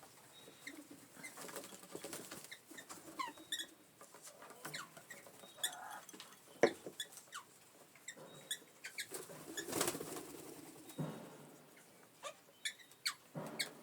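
Wild Australian ringneck (twenty-eight) parrots feeding at close range: scattered short chirps, wing flaps and small clicks and scuffs, with one sharp knock about halfway through.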